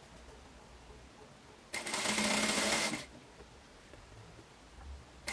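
Industrial straight-stitch sewing machine running in one burst of just over a second about two seconds in, stitching along a folded fabric strip, then starting another run right at the end.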